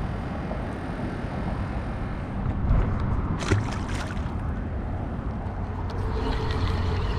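A lure cast from a spinning rod: a brief swish about three and a half seconds in, over a steady low rumble, then the spinning reel's handle being turned.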